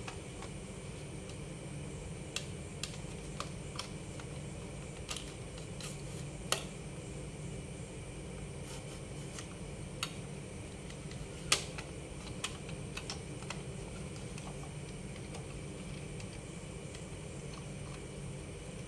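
Plastic toy fire engine being handled, with scattered sharp clicks and taps as its ladder is swung and raised, two of them louder, over a steady low background hum.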